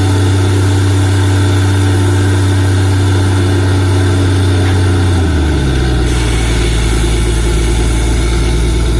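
Heavy diesel engine of a borewell drilling rig running steadily. About five seconds in, its note shifts down to a deeper, heavier hum.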